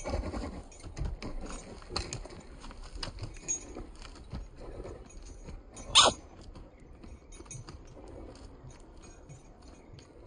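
A horse moving loose on a sand arena, its hooves beating irregularly on the sand. About six seconds in there is one much louder, sharp noise.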